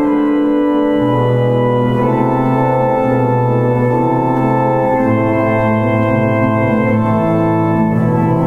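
Church organ playing slow, sustained chords over a bass line that moves from note to note.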